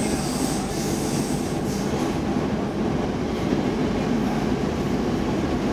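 Stockholm Metro C14 car running through a tunnel, heard from inside the car: a steady rumble of wheels on rails, with a high wheel squeal that fades out about two seconds in.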